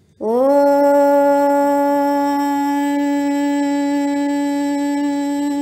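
A conch shell (shankha) blown in one long, steady blast. The note scoops up in pitch as it starts, then holds, rich in overtones.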